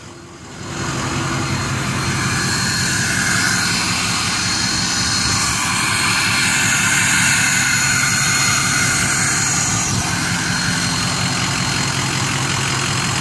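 2004 Ford F450 Super Duty's 6.0-litre Power Stroke turbo-diesel V8 idling steadily, with a high hiss that swells and fades over the middle.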